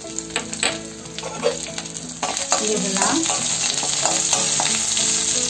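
A tempering of mustard seeds, curry leaves, dried red chillies, green chillies and ginger sizzling in hot oil in a metal kadai, stirred with a spatula that clicks and scrapes against the pan. The sizzle grows louder about two seconds in.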